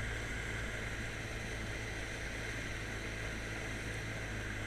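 Steady hiss with a low hum underneath and no distinct events.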